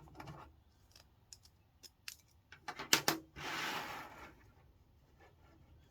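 Light 3D-printed plastic truss pieces being handled: scattered small clicks and taps, a sharper cluster of clicks about three seconds in, then a brief scraping rustle.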